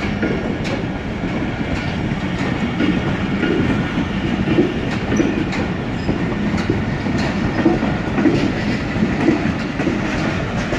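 Pakistan Railways passenger coaches rolling past along the platform as the train arrives, with a steady rumble and a rhythmic clatter of the wheels over the rail joints.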